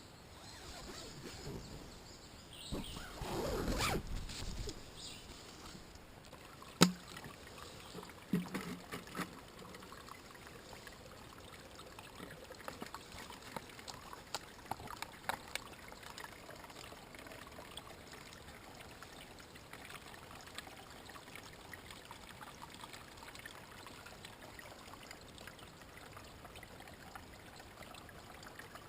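Faint steady trickle of flowing water, with a stretch of rustling handling noise early on, one sharp click and a few knocks in the first third, and scattered small clicks later.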